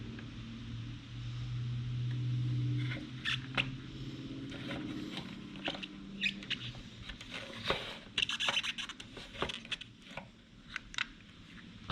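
Light clicks, taps and scrapes of screws, plastic housing and a wiring connector as a motorcycle's stock tail light is taken off. A low steady hum runs under the first few seconds.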